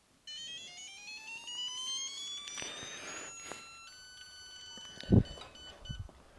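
A CDI digital torque tester sounds a tone that rises in pitch as a beam torque wrench is pulled and the torque climbs. Then it sounds steady alarm tones while the reading stands at 156.7 ft-lb, over the 150 ft-lb target and out of tolerance. A single thump comes about five seconds in, as the wrench handle is let go.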